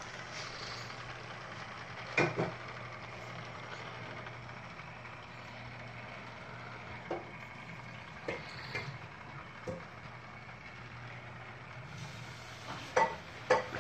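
Electric model train running on its track: a steady motor-and-wheel hum, with sharp clicks and clacks as the wheels run over the track, the loudest about two seconds in and a pair near the end.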